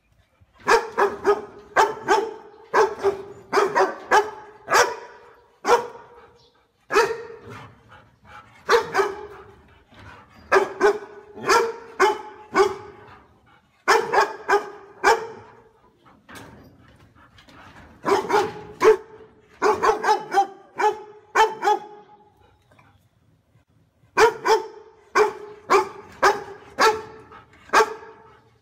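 A large short-haired dog barking loudly, in quick runs of several barks with short pauses between runs; the barking starts just under a second in.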